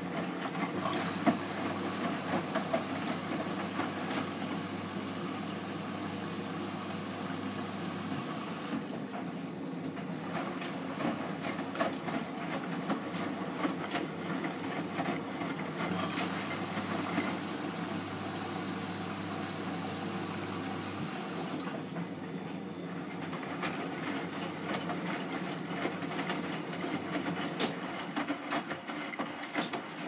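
Hotpoint NSWM 843C inverter-motor front-loading washing machine in its wash phase: the drum tumbling a full load of wet clothes, with water sloshing and the motor's low hum coming and going as the drum turns and rests.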